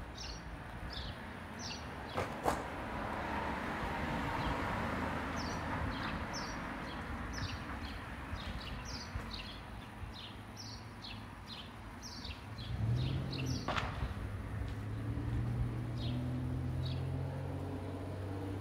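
Outdoor street sound: a small bird chirps over and over in short, high, falling notes while traffic noise swells and fades in the first half. Two sharp clicks stand out, and about two-thirds of the way through a vehicle engine starts running low and steady.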